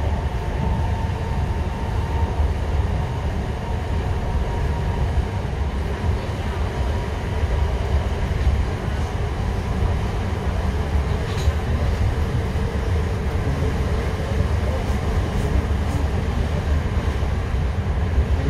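Steady running noise inside a moving passenger train: a low rumble of wheels on the track, with a faint whine that fades after the first few seconds and a brief click about eleven seconds in.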